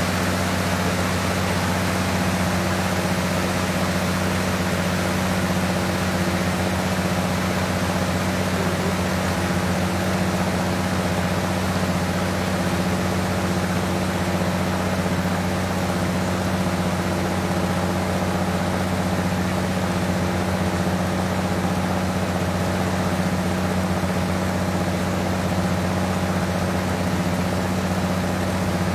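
Boat engine of a purse-seine fishing boat running steadily at constant speed, a low even drone that does not change.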